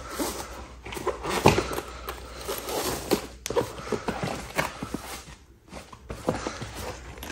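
Irregular rustling and soft knocks of clothes and bags being handled and pulled out of an opened suitcase.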